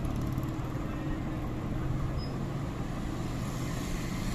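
Steady low mechanical hum in the background, with several held low tones and no change in level.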